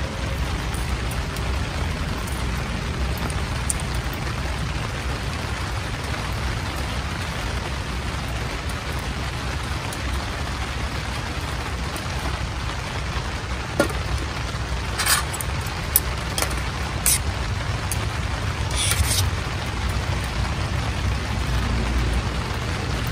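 Steady hiss with a low rumble underneath, broken about two-thirds of the way through by a few sharp clicks and short rattles of a plastic food jar and dishes being handled.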